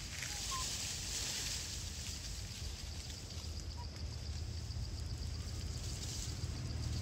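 Outdoor ambience: a steady high hiss with a low rumble underneath that grows louder over the second half. Two faint short chirps come through, about half a second in and near the four-second mark.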